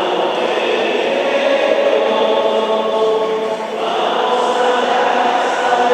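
Voices singing a slow liturgical chant in long held notes during Mass, moving to a new note a little under four seconds in.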